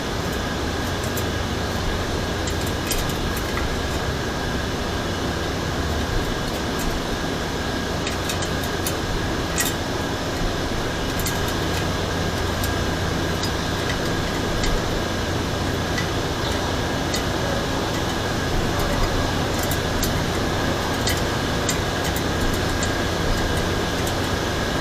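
Steady background hum and hiss with a low drone, broken by occasional faint clicks.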